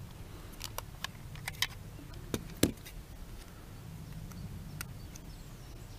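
Sharp plastic clicks and knocks as a toy drone's plastic transmitter and its clip-on phone-holder locking mechanism are handled and pushed together, about a dozen in the first three seconds, the loudest a little over two and a half seconds in. A steady low rumble lies underneath.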